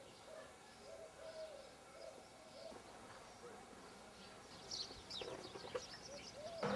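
Faint bird calls: a run of low, short repeated calls in the first half, then higher, quick chirps from about two-thirds through. A brief sharp noise comes at the very end.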